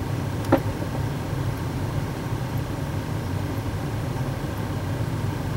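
Steady low machine hum, with one short sharp click about half a second in.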